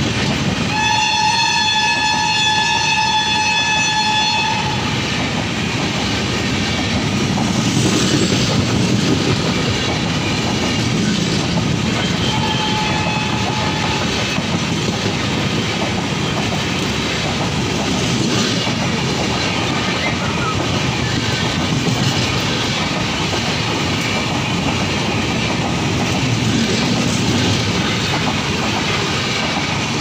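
An express passenger train's coaches rolling past at speed, a steady rumble with wheel clatter. About a second in, the hauling WAP-7 electric locomotive's horn sounds one long blast of about three seconds, and a brief, fainter hoot follows about twelve seconds in.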